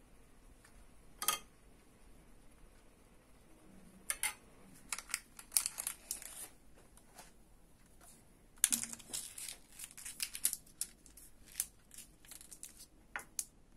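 Paper piping cone crinkling and rustling in the hands, in two spells of quick crackly rustles, with a single sharp click about a second in.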